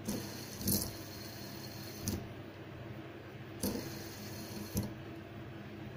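A fidget spinner being flicked by hand and spun, held down at its centre bearing: four sharp clicks about a second or so apart over a low steady hum.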